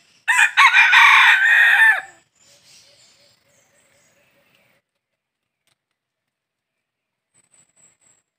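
A red junglefowl rooster crows once, a short loud crow of about a second and a half. Fainter calls trail off after it, and a few faint high chirps come near the end.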